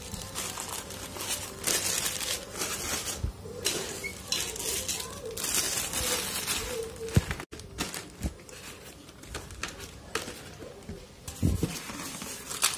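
Plastic bags crinkling and rustling as bagged drone parts are handled in a styrofoam packing tray, with a few dull knocks, the loudest about seven seconds in, and a styrofoam lid being set over the tray near the end.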